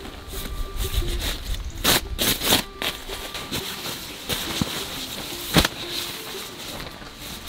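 Crinkling and rustling of a plastic tarp and nylon mattress fabric as a deflated air mattress is folded and strapped up by hand. There are several sharp crackles, the loudest about three-quarters of the way through.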